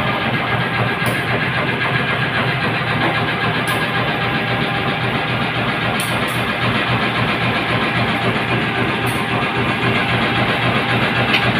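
Diesel locomotive engine idling steadily, a constant low hum and rumble.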